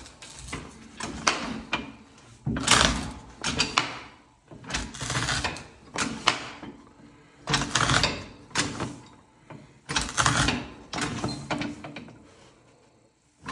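W.F. & John Barnes foot-powered mortiser chopping a mortise into a wooden board: a series of uneven knocking, crunching chisel strokes about once a second as the treadle drives the chisel down, stopping a little before the end.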